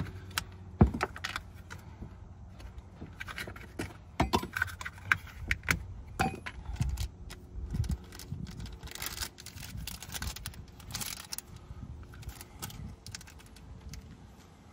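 Hands working around a car battery and a small plastic parts packet: scattered sharp clicks and light metallic rattles, the loudest click about a second in, then crinkling of the packet as it is opened, roughly two-thirds of the way through.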